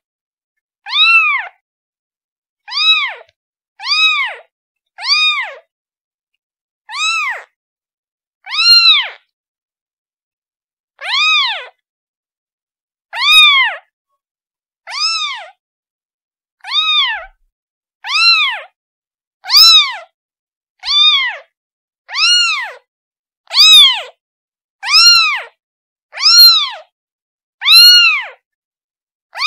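Kitten meowing over and over, calling for its mother: a long series of short, high-pitched meows, each rising then falling in pitch, about one every one to two seconds and coming closer together in the second half.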